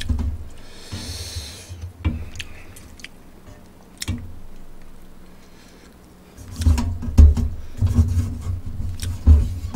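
Eating ramyeon close to a microphone. Chopsticks click against the aluminium pot a few times in the first half. From about six and a half seconds there is a run of deep, muffled thumps with slurping and chewing of the noodles.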